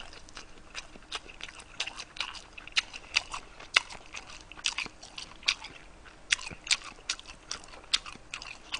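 A person chewing a mouthful of food close to the microphone: irregular soft mouth clicks and smacks, a few each second.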